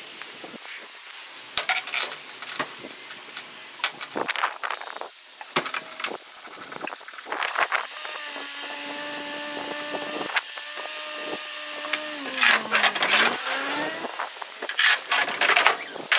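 Ratchet straps being worked over a car's wheels on a recovery truck's steel bed: repeated ratchet clicks, knocks and rattles. In the middle a steady droning tone runs for several seconds and dips in pitch briefly before the clicking resumes.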